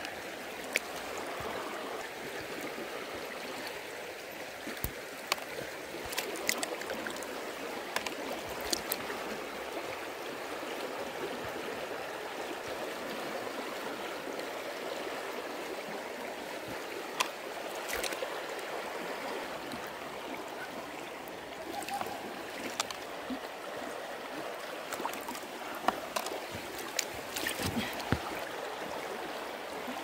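Shallow stream water flowing and gurgling close by, stirred by gloved hands working in the shallows, with scattered sharp clicks and taps throughout.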